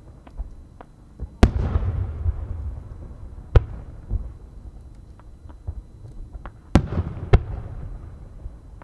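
Aerial firework shells bursting in the sky with chrysanthemum-pattern breaks. There are four loud booms, two of them about half a second apart near the end, and the first and third are followed by a rolling echo. Smaller pops and crackles come in between.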